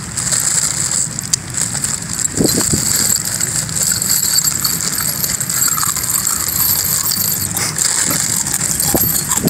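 Loose steel nails clinking and rattling in a plastic bag as handfuls are scooped out, with the bag crinkling throughout.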